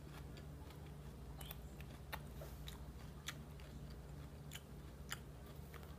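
Faint close-up chewing of a mouthful of salad: soft wet mouth sounds with irregular small crunches and clicks.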